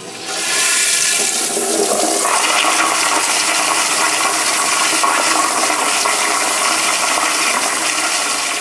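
Crane commercial toilet with a flushometer valve flushing: a loud rush of water comes up about half a second in, holds steady, and begins to die down near the end.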